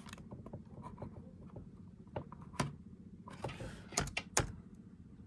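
Scattered clicks and knocks of laptop hardware being handled, with a short scrape about three and a half seconds in and two sharper clicks soon after, over a low steady hum.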